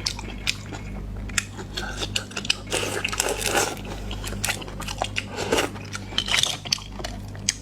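Close-up chewing and biting: a string of sharp crunches and wet mouth clicks as food is eaten.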